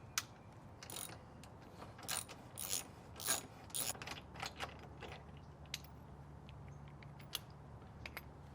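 Hand ratchet with a 5/16 socket clicking in short, irregular bursts as a bolt is loosened, thinning out to a few single clicks in the second half.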